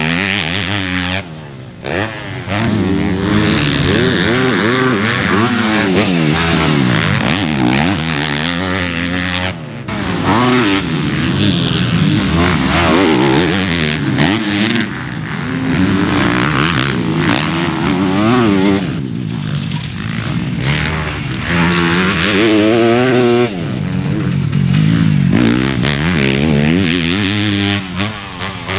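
Four-stroke motocross bikes revving hard on a dirt track, the engine pitch climbing and dropping over and over as the riders accelerate, shift and back off. The sound changes abruptly several times, jumping from one pass to another.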